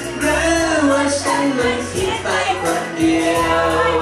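A man singing a Thai pop song live into a handheld microphone over backing music, holding long notes.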